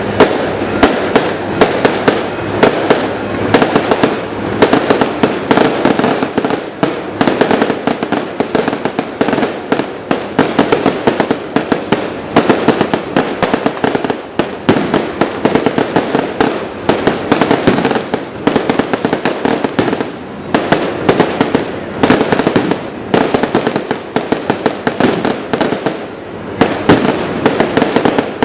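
Fireworks display: a dense, unbroken barrage of aerial shell bursts and firecracker-like reports, several bangs a second.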